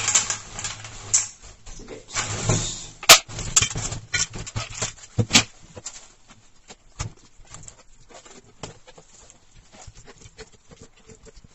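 Pet-food tin, spoon and bowl clattering as food is spooned out, with a sharp knock about three seconds in and another about five seconds in, then only faint small taps.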